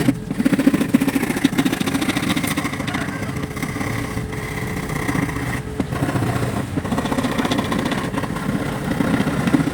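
Hand saw cutting through plywood in fast, steady back-and-forth strokes, with brief breaks in the stroking about six and seven seconds in.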